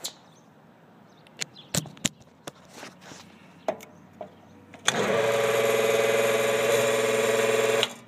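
A few light clicks and handling knocks, then about five seconds in a three-phase rooftop AC compressor, switched on by pushing its contactor in by hand, gives a loud, steady electrical hum-buzz for about three seconds before cutting off sharply. It makes a funky noise and doesn't sound right: the compressor is running on only two of its three power legs, from a blown fuse in the disconnect.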